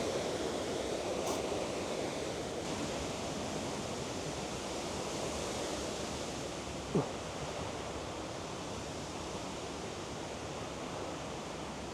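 Steady rushing of a waterfall and burn through the trees, an even wash of water noise, with one short falling squeak about seven seconds in.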